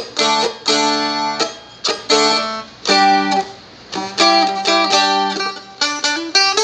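Seagull Merlin, a fretted dulcimer-style stick instrument, played solo: a riff of sharply strummed chords and plucked notes, each left ringing over the open drone.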